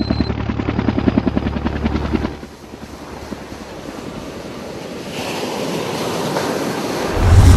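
Helicopter rotor chopping fast and evenly, cutting out about two seconds in. Ocean surf washes in and slowly swells louder, and a deep boom hits near the end.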